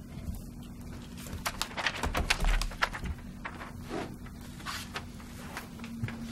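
Handling noise at a meeting table: paper rustling and sharp clicks, with a dull low thump about two and a half seconds in and a few more clicks a little later, over a steady low hum.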